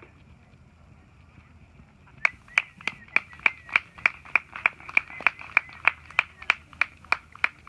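One person clapping close by, starting about two seconds in and keeping up an even beat of about three claps a second.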